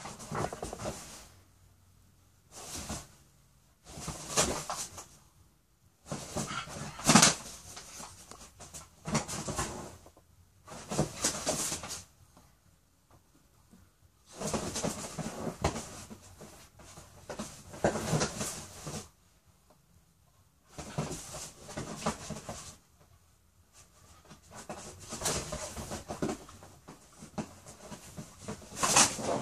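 A dog and a rooster scuffling on a leather sofa: bursts of scrabbling, rustling and flapping a second or two long, broken by short quiet pauses, with a sharp knock about seven seconds in.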